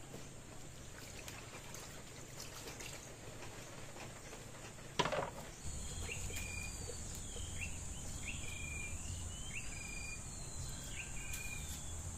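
Steady high-pitched drone of insects, with a single sharp knock about five seconds in. After the knock a bird calls in short, repeated chirps about once a second.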